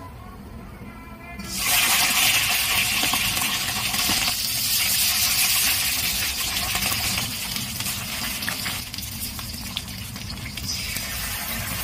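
A whole scored pompano sizzling in hot oil in a carbon-steel wok: the sizzle starts suddenly and loudly about a second and a half in as the fish goes into the oil, eases a little later, and rises again near the end.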